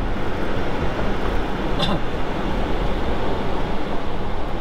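Steady road and engine noise inside a moving car's cabin: a low rumble with tyre hiss. A brief click about two seconds in.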